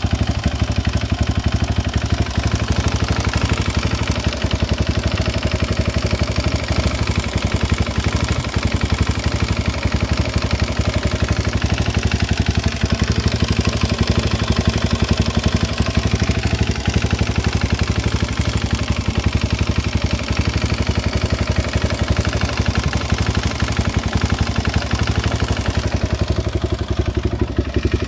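Suzuki LTZ 400 quad's single-cylinder four-stroke engine idling steadily with a rapid clatter, which the owner puts down to worn valves.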